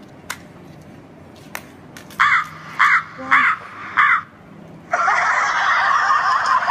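Four harsh crow caws in quick succession, then continuous laughter starting about five seconds in.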